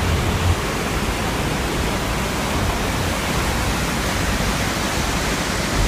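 Whitewater rapids at a falls rushing, a loud, steady, even rush of water.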